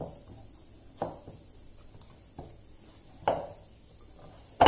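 Hands kneading a stiff dough of coarse wheat flour in a glass bowl: short dull thumps about once a second as the dough is pressed and pushed down, the last ones loudest.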